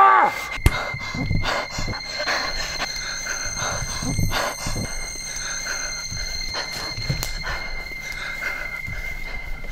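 A short rising cry from a woman cuts off right at the start. After it a steady high-pitched whine holds until shortly before the end, over uneven breathing and scuffing.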